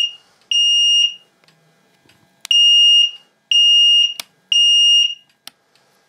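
Fire alarm sounder beeping a high-pitched US temporal tone (Code 3), the alarm tripped by the optical smoke detector during a test: one half-second beep ending a group, a pause of about a second and a half, then a group of three half-second beeps a second apart.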